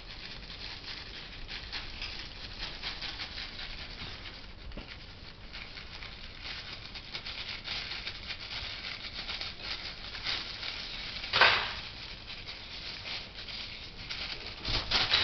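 Plastic carrier bag crinkling as a hand rubs and scrunches it on a floor: a steady fine crackle, with one louder burst about eleven seconds in.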